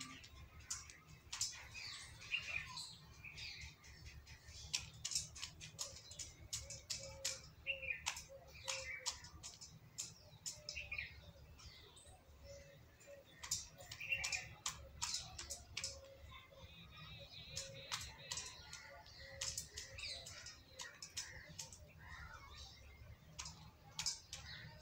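Indian peacock pecking feed from a steel bowl, its beak striking the metal in irregular sharp clicks, often several in quick succession. Small birds chirp in short calls in between.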